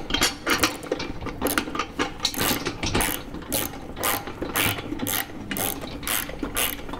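Ratchet socket wrench clicking in short bursts, roughly two a second, as it is swung back and forth to tighten brass nuts on a brass ship light.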